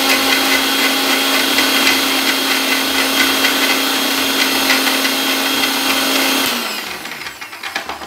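Electric mixer grinder with a stainless steel jar grinding ginger, garlic, curry leaves and spices, running loud and steady. About six and a half seconds in it is switched off and winds down with a falling hum, followed by a few small knocks.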